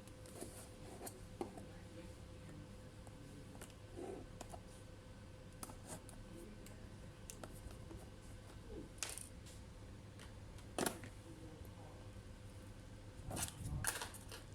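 Sparse small clicks, taps and scrapes of hands and small tools working on a laptop's case, with a sharper click about eleven seconds in and a few more near the end, over a faint steady hum.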